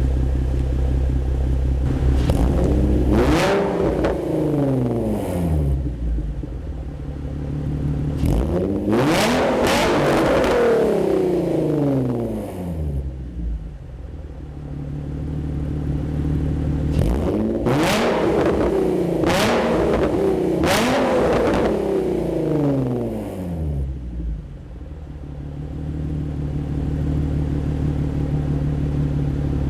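2005 Infiniti G35's 3.5-litre VQ35DE V6, through a Motordyne Shockwave straight-through exhaust with ART pipes, idling and then free-revved in three bouts, the pitch climbing and falling back to idle each time, the last bout with several quick blips. The revs go to about 3,000 and 5,500 rpm, short of redline.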